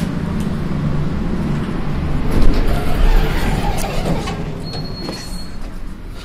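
Elevator car running with a low rumble and rattling, loudest about two and a half seconds in, as it comes to a stop and its doors open. A thin high tone sounds briefly about five seconds in.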